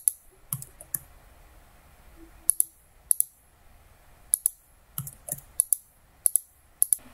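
Computer mouse button clicks: a dozen or so sharp, separate clicks, several in quick pairs, at an uneven pace.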